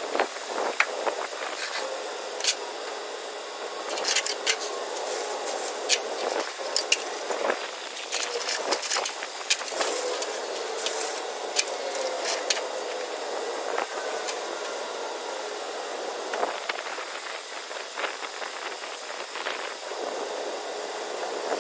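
A steady outdoor hiss with many scattered sharp clicks and clanks, like tie-down chains and binders being handled against the steel trailer deck.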